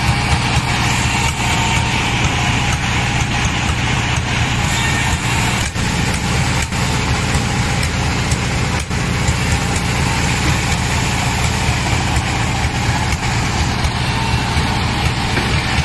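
Sawmill machinery engine running steadily: a low, even drone that does not rise or fall.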